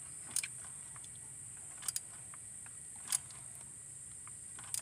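Four sharp metallic clicks, irregularly spaced a second or so apart, from a 3/8-inch-drive ratchet and socket extensions working a spark plug down in its well. Behind them, a steady high chirring of crickets.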